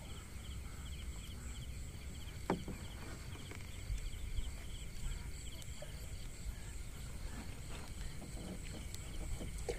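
Night insects chirping in a steady, evenly pulsing chorus, over a low rumble, with a single sharp knock about two and a half seconds in.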